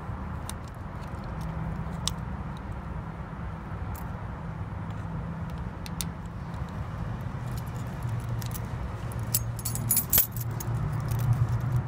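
Keys jangling on a key ring as a small key is worked into a bicycle cable lock, with scattered metal clicks and a flurry of louder clinks about ten seconds in. A steady low hum runs underneath.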